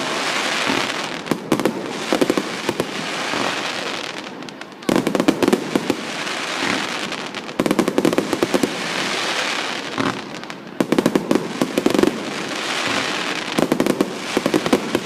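Aerial fireworks bursting, a new burst about every three seconds, four times. Each burst is followed by a dense crackling that fades over a couple of seconds.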